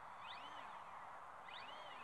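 Radio-controlled model autogyro flying high overhead: its motor and rotor make a faint, steady drone. Two short high tones rise and fall over it, about half a second and a second and a half in.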